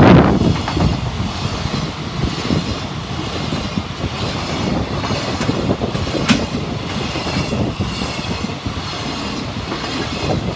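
JR Tokaido Main Line train passing close by: a steady rumble of wheels on rail with clickety-clack over the rail joints. It is loudest at the very start, and there is one sharp click about six seconds in.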